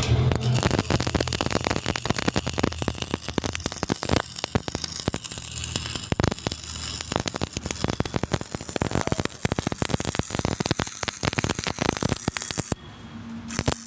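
Electric arc welding on a steel channel: the arc's continuous crackling and sputtering hiss. The arc breaks off briefly about a second before the end, then strikes up again.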